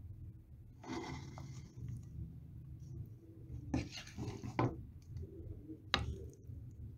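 Food being served onto a plate: a few short scrapes of a serving spoon, then a sharp click about six seconds in.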